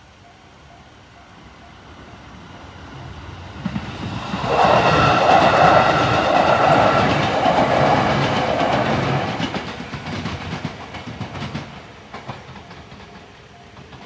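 An electric train passes over the level crossing, with wheels clattering over the rail joints. It swells to loud about four seconds in and dies away by around twelve seconds. Under it the crossing's JR-standard electronic warning bell keeps ringing in an even repeating pattern.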